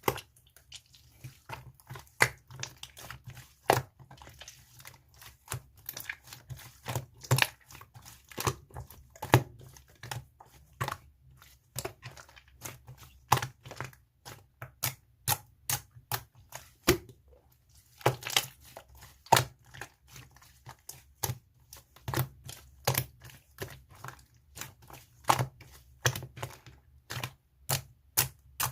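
Hands squeezing, folding and poking an Elmer's-glue slime, giving a steady run of irregular, sharp clicking pops as trapped air bursts.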